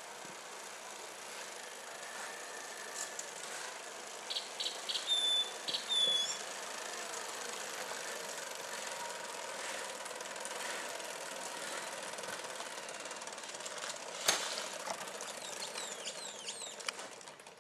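Hand-pushed flat rail cart loaded with sacks, rolling along railway track with a steady rattle of its wheels on the rails, and one sharp knock about fourteen seconds in. A few short high bird chirps come about four to six seconds in.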